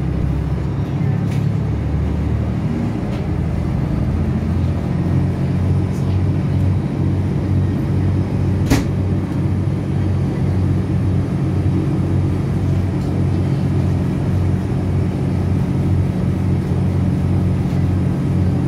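Diesel multiple unit's underfloor engine and running gear heard from inside the carriage as the train pulls away from a station and gathers speed: a steady low pulsing drone that settles into an even beat after a few seconds. One sharp click sounds about nine seconds in.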